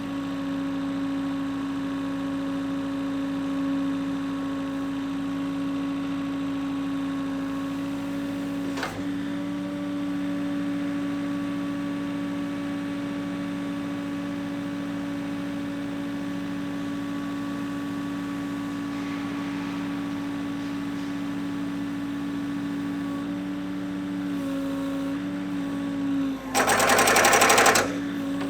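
MGI Tonker 830 piling rig running with a steady mechanical hum. Near the end comes a loud burst of about a second and a half of rapid, repeated blows from its pile-driving hammer.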